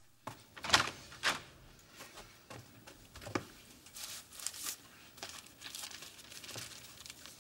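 Newspaper pages rustling and crinkling as they are handled and turned, in irregular crackles, the loudest about a second in.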